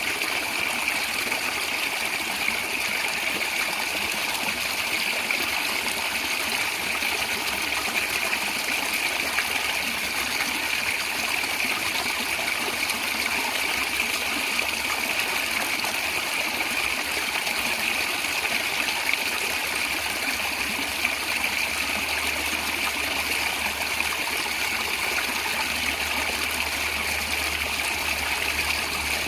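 Natural stream water running and gurgling steadily over stones, an even rush of sound with no breaks.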